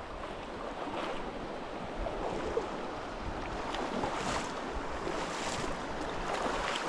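Steady rushing of a mountain trout creek's running water.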